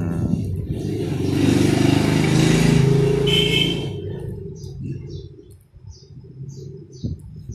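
A road vehicle passes by, its engine noise swelling and then fading out about four seconds in. After that come light clicks of laptop keyboard keys being tapped.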